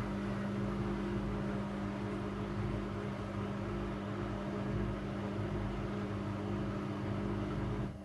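Midea front-loading washing machine in its final spin cycle: the drum spinning at speed with a steady motor hum and whir.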